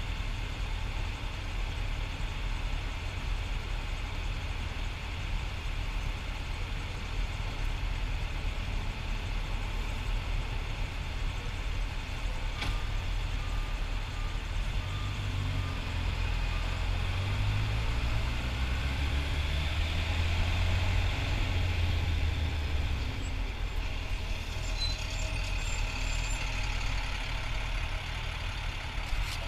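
Motorcycle riding in traffic: steady engine and wind noise, with the engine note stepping up and down in pitch from about halfway through.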